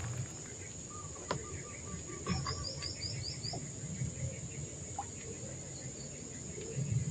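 Riverside ambience: a steady high insect drone, with a bird calling in runs of short, quickly repeated notes about one to three seconds in, and a couple of faint clicks.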